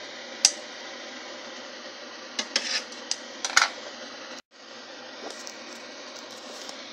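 Kitchen scissors snipping boiled pork skin and clinking against a stainless steel pan: a single sharp metallic click about half a second in, then a quick cluster of clicks and clinks midway, over a steady background hiss. The sound cuts out for a moment just after the middle.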